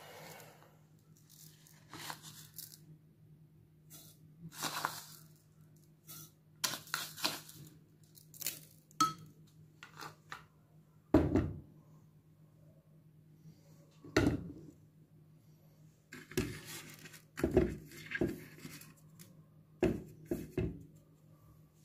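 Irregular kitchen handling sounds: rustling and crinkling like a packet being torn open, light clinks of utensils, and a few knocks, the sharpest about eleven and fourteen seconds in. A faint steady low hum runs underneath.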